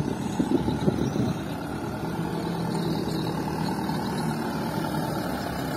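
Mitsubishi Fuso dump truck's diesel engine running as the truck drives across loose fill soil. It is uneven and louder for about the first second, then settles into a steady hum.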